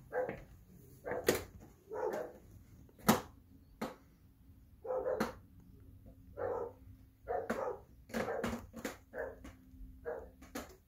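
A dog barking over and over, short barks roughly once a second, with a few sharp knocks in between, the loudest about three seconds in.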